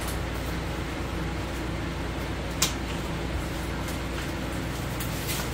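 A black nylon belt bag being handled and turned over, giving faint fabric rustling and one sharp click about two and a half seconds in, with a couple of fainter clicks near the end, over a steady low hum.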